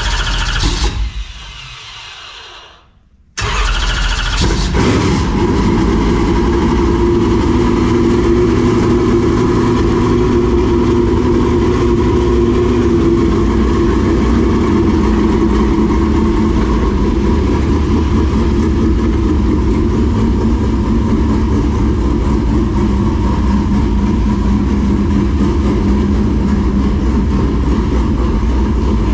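Carbureted GM 604 crate small-block V8 in a dirt late model starting up. A short burst of engine noise at the start dies away, then about three and a half seconds in the engine catches and runs steadily. It is the first start after a valve spring change, left running to build oil pressure.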